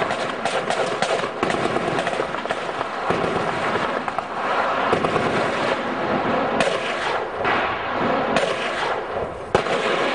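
Sustained gunfire: a dense, continuous crackle of many shots in quick succession, with a few louder single cracks in the second half.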